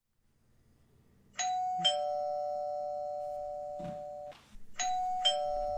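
Two-tone doorbell chime rung twice: each time a higher ding is followed half a second later by a lower dong, and both ring on for a couple of seconds.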